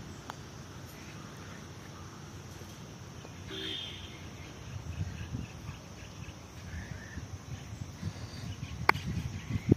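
Outdoor ambience: a steady low rumble, like wind on the microphone, with a few faint bird chirps now and then and one sharp click near the end.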